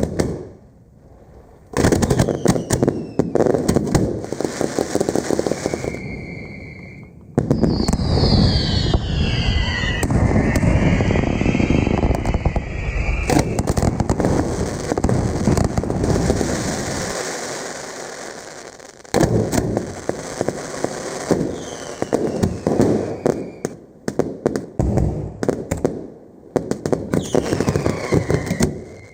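Fireworks going off: a dense run of bangs and crackling bursts, with several whistles that fall in pitch and one short steady whistle about six seconds in.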